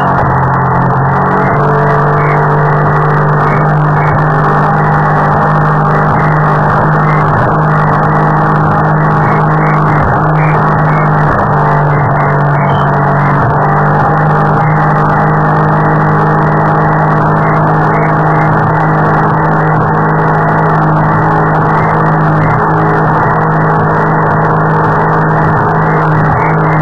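Powerboat engine running steadily at speed, heard loud from on board, holding one constant pitch with no revving changes.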